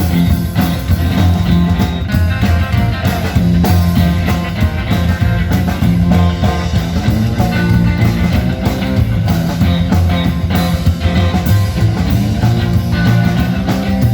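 Rock band playing an instrumental break of a song: guitar over a steady bass line and drums.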